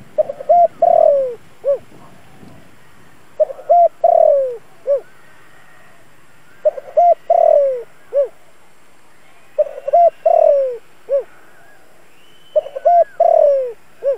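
Spotted dove cooing its song, the same phrase five times about every three seconds: a couple of short notes, a longer falling coo and a short closing note. It is a caged decoy bird, calling to draw wild doves in.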